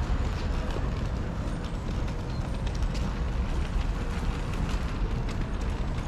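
Outdoor street ambience: a steady low rumble with many small, irregular clicks and taps over it.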